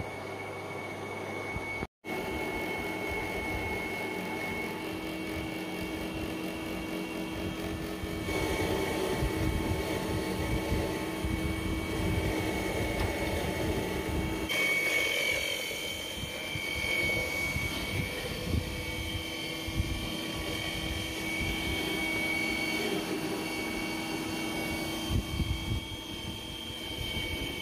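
Electric colloid mill grinding peanuts into peanut butter, its motor running with a steady high whine over a hum. The sound drops out for a moment about two seconds in and changes abruptly twice later on, at edits.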